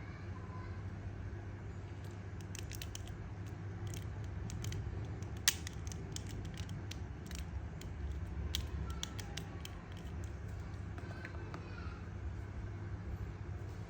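Scattered small clicks and taps of plastic parts and packaging being handled, with one sharper click about five and a half seconds in, over a steady low hum.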